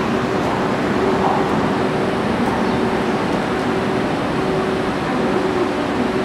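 EF81 electric locomotive standing with its machinery running: a steady hum with a constant low tone over an even noise.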